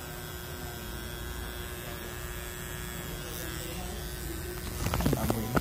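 Corded permanent-makeup shading pen buzzing steadily against the eyebrow skin during machine brow shading, with a low even hum that stops about two-thirds of the way through.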